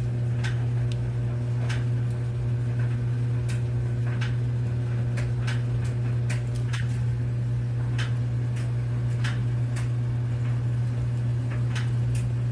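Steady low electrical hum of an electric melting furnace, with scattered faint clicks and ticks throughout.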